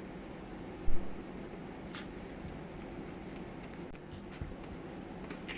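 Handling noises on a tabletop: a sharp low thump about a second in, and short crackles around two seconds in and near the end.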